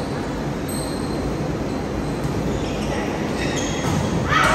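Indoor volleyball being played in a large, echoing gym: a steady hall noise with faint, brief squeaks from sneakers on the hardwood court, and a louder pitched burst near the end.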